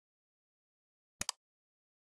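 Mouse-click sound effect from the like/subscribe animation: a quick double click about a second in, with silence around it.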